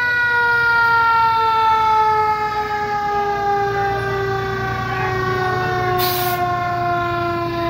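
Fire truck's mechanical siren winding down, its pitch falling slowly and steadily, over a low engine rumble. A short hiss comes about six seconds in.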